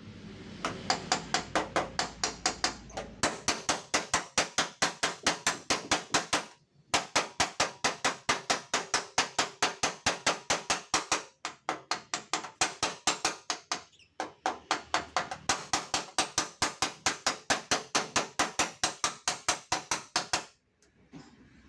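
Hammer tapping rapidly and steadily on the dented sheet-steel fender of a Toyota Agya, about four to five blows a second, in long runs with a few brief pauses: the panel being tapped back into shape without repainting.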